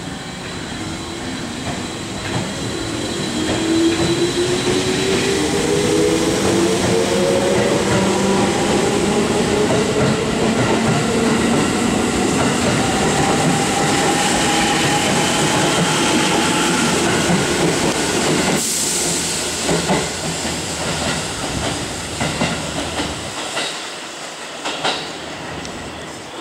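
A 211-series and 313-series electric multiple unit train pulling out of a station: the traction motors whine, rising steadily in pitch as it accelerates over the rumble of the cars. In the second half the wheels clack over rail joints as the last cars go by, and the sound fades near the end.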